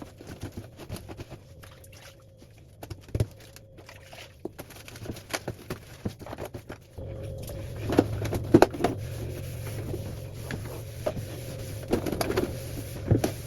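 Scattered clicks and knocks of items being handled while cleaning out a freezer, growing busier in the second half. A steady low hum starts abruptly about halfway through.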